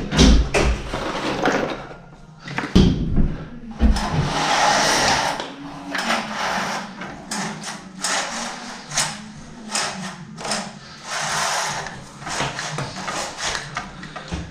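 Venetian blind being let down and worked by its pull cord: the slats clatter against one another and the cord runs through the headrail in a couple of longer rushes, among many small clicks. A few heavy knocks come in the first few seconds.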